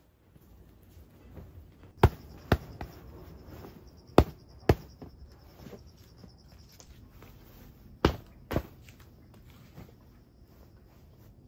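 Three pairs of sharp thumps, the two in each pair about half a second apart, over a faint steady high insect buzz.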